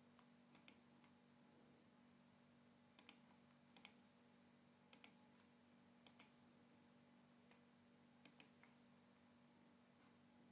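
Faint computer mouse clicks, six of them, each a quick press-and-release pair, spaced unevenly about one to two seconds apart.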